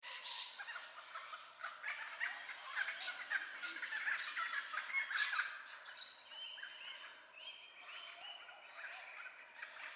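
Noisy friarbirds and other bush birds calling harshly: a dense chatter of overlapping calls, then a run of about eight evenly spaced repeated calls in the second half. They are scolding a square-tailed kite that has landed in their territory.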